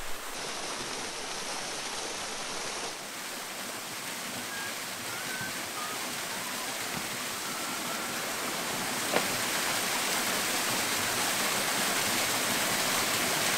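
Waterfall: a steady, dense rush of falling water. It drops slightly about three seconds in, then slowly builds.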